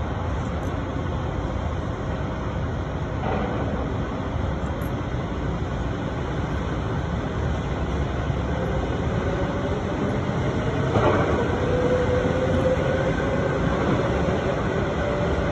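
EP2D DC electric multiple unit running past on the tracks below, a steady rumble of wheels and running gear. From about eight seconds in, a whine slowly rises in pitch, and the rumble grows a little louder near the end.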